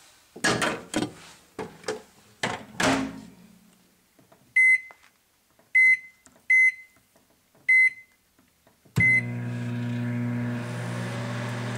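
Microwave oven being loaded and started: a few clunks and knocks as the bowl goes in and the door is shut, then five short keypad beeps as the time is set for 3 minutes, and about nine seconds in the microwave starts running with a steady hum.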